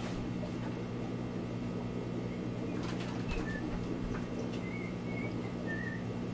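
Steady electric hum of aquarium equipment, the motors of air pumps and filters running. A few faint, short, high chirps and light clicks come in about halfway through.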